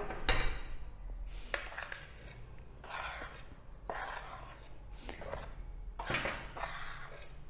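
A wire whisk scraping in a glass bowl of cake batter and a spoon scraping flour off a plate, as a handful of short, irregular scraping strokes with a light click.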